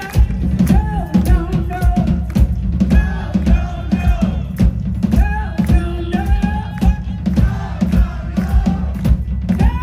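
Amplified live band playing a song: a drum kit keeping a steady beat over heavy bass, with a lead singer's voice on top.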